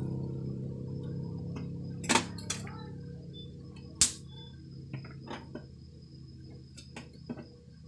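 Light clicks and taps of a small hand tool working on the parts of an opened electronics unit, irregular and a few seconds apart, the sharpest click about four seconds in, over a steady low hum.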